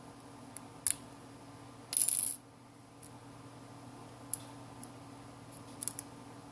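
A few light clicks of small tools and parts during phone disassembly, with a brief metallic clatter, like a small part or tool dropped onto a hard surface, about two seconds in; the clatter is the loudest sound.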